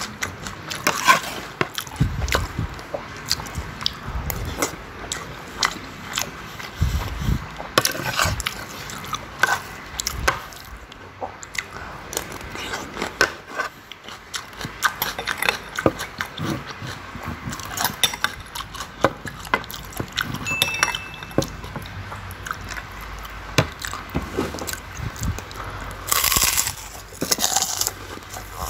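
Close-up eating sounds: a metal spoon clinking and scraping on a plate, with chewing and mouth sounds in between. A louder burst of crunching comes near the end.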